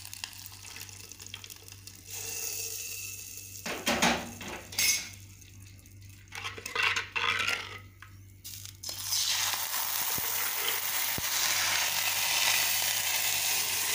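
Hot oil tempering (tadka) poured from a steel pan into buttermilk in a clay pot, hissing as it hits, with a loud knock about four seconds in. A steel ladle then scrapes and clinks against the clay pot as the buttermilk is stirred, and a steady hiss runs through the last few seconds.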